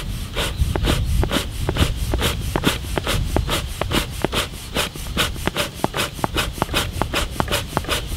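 Bee smoker's bellows pumped in a quick, regular rhythm, several puffs a second, each pushing air through the burning cardboard in the fire chamber, like a steam engine. A low rumble runs underneath.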